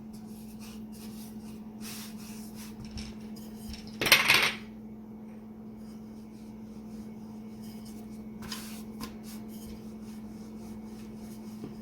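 Wooden rolling pin rolling out a stuffed paratha on a rolling board: soft rubbing and light knocks, with one louder clatter about four seconds in.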